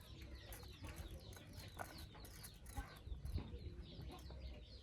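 Small birds chirping faintly in the background, a rapid run of short, falling chirps, over a low steady hum.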